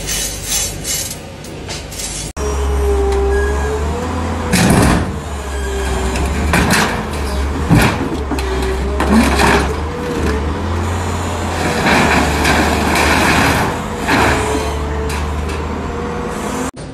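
Excavator diesel engine running with a wavering hydraulic whine, and scattered metal clanks and bangs as its scrap-lifting magnet grabs and drops sheet-metal scrap. Before that, for about two seconds, there are light metallic clinks of loose steel rods being pressed into a steel grating.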